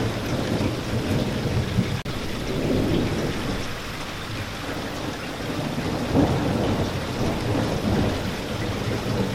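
Steady, heavy rain with low rumbles of thunder swelling and fading beneath it, and a very brief dropout about two seconds in.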